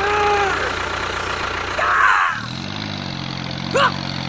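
A small engine starts running about two seconds in and then idles with a steady low hum.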